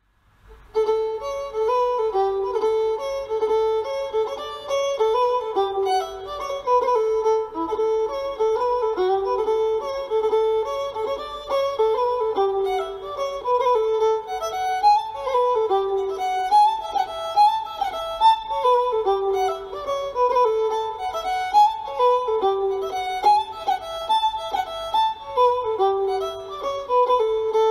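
Solo fiddle playing a quick, lilting melody as background music, starting about a second in.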